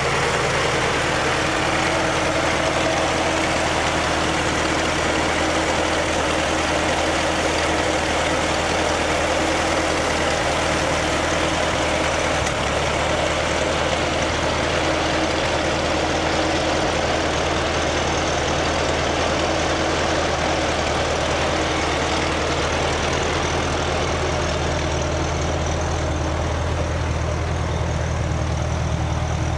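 An antique fire truck's engine running steadily at a constant speed while it drives its water pump, with a steady rushing noise over it.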